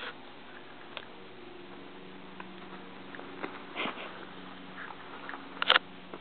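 A cat playing with a toy mouse on a string on carpet: scattered soft clicks and rustles of its claws and teeth on the toy, the loudest pair near the end, over a faint steady hum.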